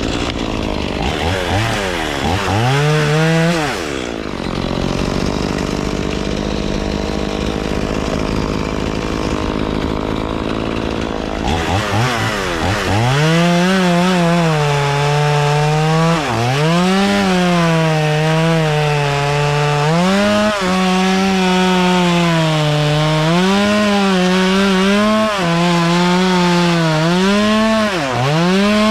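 Two-stroke chainsaw cutting walnut logs. It revs up briefly about a second in and drops back for several seconds. From about twelve seconds it runs at full throttle, its pitch sagging every few seconds as the chain bites into the wood and recovering in between.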